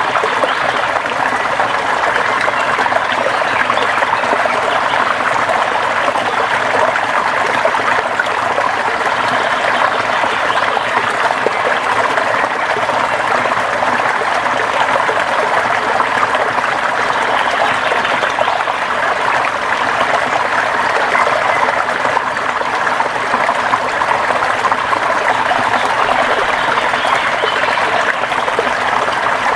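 River water flowing steadily, an even, unbroken rush of running water.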